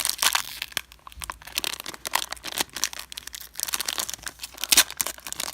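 Crinkling and tearing of a trading card pack's plastic wrapper as it is ripped open and handled, in irregular bursts of crackles.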